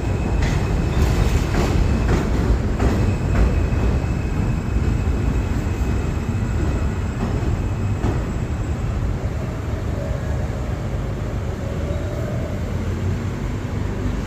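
R160A subway train running into a station with a steady rumble. Its wheels click over rail joints in the first few seconds, and a faint whine comes in a little past the middle as the rumble eases slightly.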